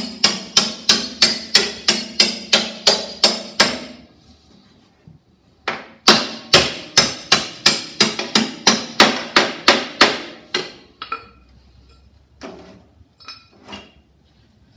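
Hammer driving a steel pin into the hood hinge of an Ingersoll 3014 garden tractor: two runs of quick, even hammer blows, about three a second, with a pause between them, then a few lighter taps near the end.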